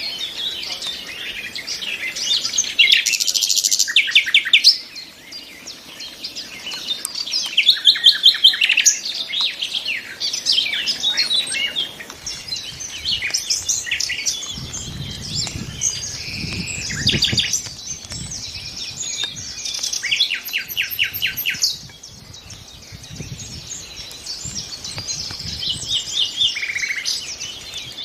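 Nightingale singing: varied phrases of fast repeated notes and short whistles, each phrase a second or two long and separated by brief pauses.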